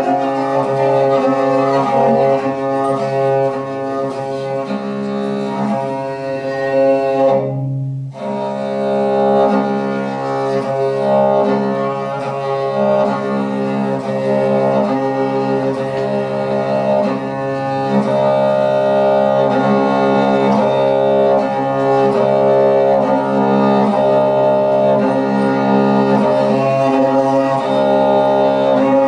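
Tuvan throat singing with a bowed Tuvan fiddle: a steady low drone with shifting upper tones, broken by a short pause about seven and a half seconds in.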